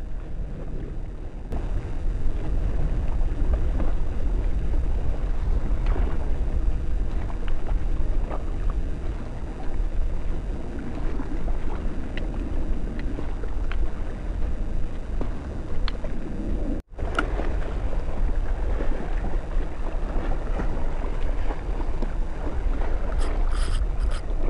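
Wind buffeting the microphone over sea water washing against the shore rocks: a steady low rumble with no distinct events. The sound cuts out for an instant about two-thirds of the way through.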